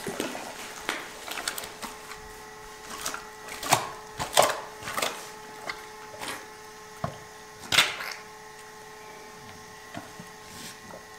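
Scattered sharp clicks and knocks, loudest about four and eight seconds in, over a faint steady hum.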